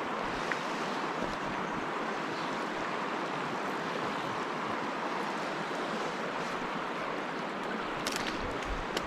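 A fast-flowing stream rushing steadily, running high with spring runoff.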